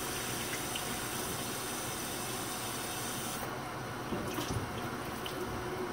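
Kitchen tap running into the sink while rice is rinsed by hand, shut off about three and a half seconds in, followed by a few light knocks at the sink.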